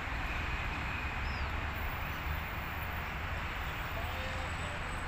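Steady outdoor background noise with a low rumble, as of city traffic around a park, and a faint short high chirp about a second in.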